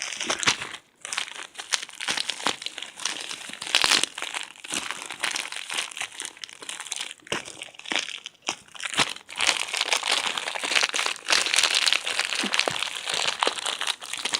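A taped plastic package crinkling and rustling as it is wrestled and pulled open by hand, the tape tugged loose. The crackling is irregular, with short lulls about a second in and again around eight seconds in.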